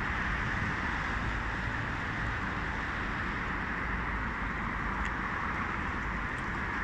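Steady harbour ambience: an even rushing noise with a low rumble underneath and no distinct events.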